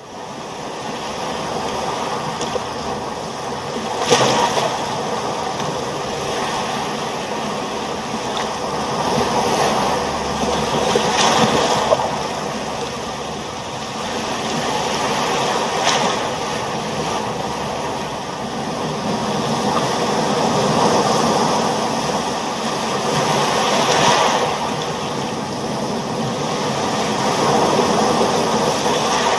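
Ocean waves washing steadily, swelling and easing, with a louder crash of surf now and then.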